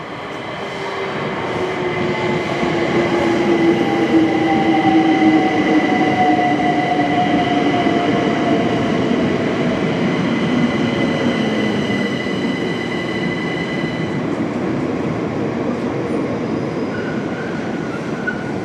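A Class 378 Electrostar electric multiple unit runs into the platform and brakes to a stop. Its traction motors whine in a falling pitch as it slows, over rail and wheel noise that is loudest as the cars pass close, and a steady high whine ends as it stands. Short beeps come near the end.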